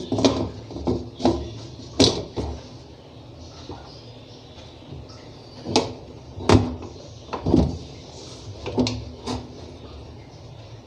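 Aluminium pressure cooker lid being fitted and twisted shut on its pot, giving a series of sharp metal clacks and scrapes a second or more apart as it seats and locks.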